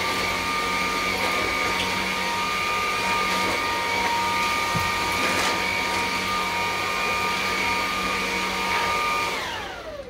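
Dreame T20 cordless stick vacuum running with a steady high motor whine over a rush of air. Near the end it winds down as it is switched off.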